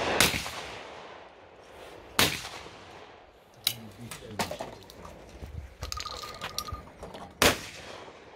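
Shotgun shots at clay targets: one just after the start, a loud one about two seconds in, and another near the end, with fainter pops and clicks between.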